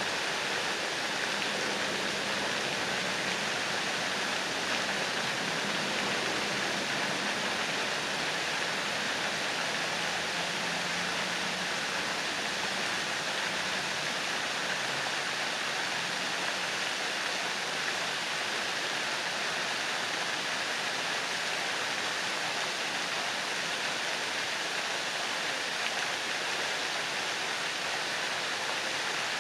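Park pond fountains: water jets spraying and falling back onto the pond surface, a steady even splashing hiss.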